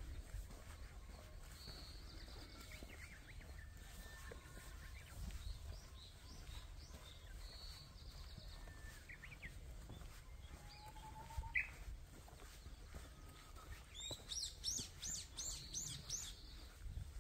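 Several wild songbirds calling in the woods: scattered chirps and short trills, then near the end one bird sings a quick run of about a dozen falling notes, the loudest sound here. A low steady rumble runs underneath.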